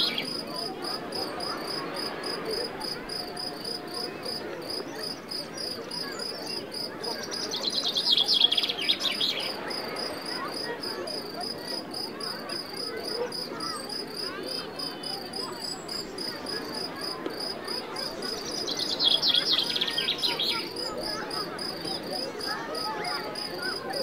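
Crickets chirping steadily in a fast, even pulse over a soft wash of the sea. Twice, a louder rapid trill rises over them for about two seconds.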